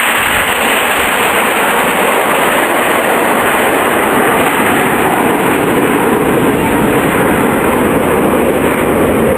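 Jet aircraft flying past, a loud steady engine roar that grows deeper and heavier toward the end.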